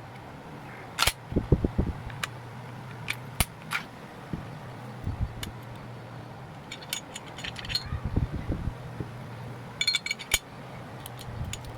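Glock 19X pistol being field stripped: a series of sharp clicks and clacks as its slide and parts are handled, with small clusters of quick clicks about seven and ten seconds in, over a steady low hum.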